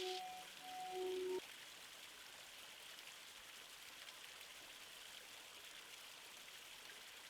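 A few held music notes that stop about a second and a half in. After that, only a faint, steady hiss of woodland ambience remains.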